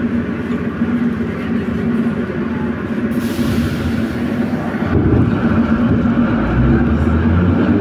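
Inside an 81-714.5M Moscow metro car at a station: the steady hum of the car's running equipment, with a hiss of air about three seconds in and a low rumble building in the last few seconds.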